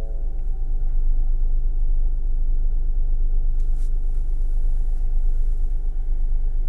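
Ford Bronco Sport's 1.5-litre turbocharged three-cylinder engine idling just after start-up, a steady low rumble heard from inside the cabin.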